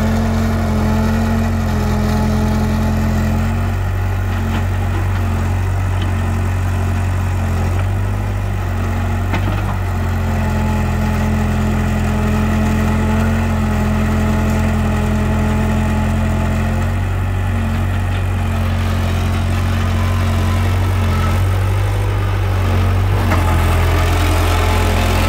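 Caterpillar 308B mini excavator's diesel engine running steadily, its note shifting slightly at times as the machine works. It grows a little louder near the end.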